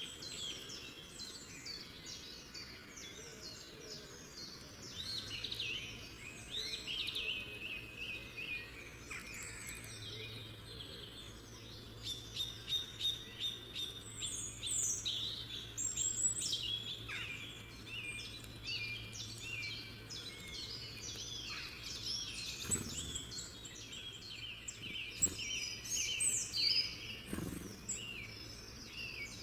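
Several songbirds singing at once, a dense mix of quick chirps and trills. A faint, steady low hum sits underneath from about five seconds in.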